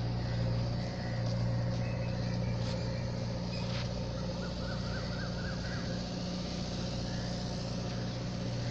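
A steady, low motor drone that holds one pitch throughout.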